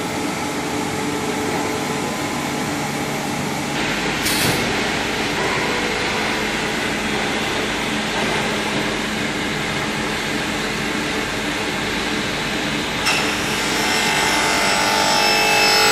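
Steady running noise of a plastic extrusion line's machinery, with several steady humming tones. The sound shifts abruptly about 4 seconds in, with a single sharp knock, and again about 13 seconds in, when higher whining tones come in.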